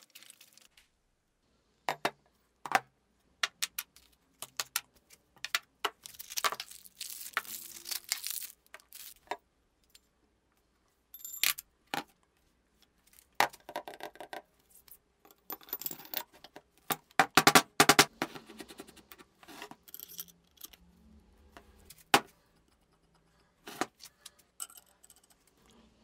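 Steel drill-press quill, splined spindle and ball bearing being handled on a wooden workbench: scattered sharp metal clinks and knocks, with a short scraping stretch, busiest near the end of the second third.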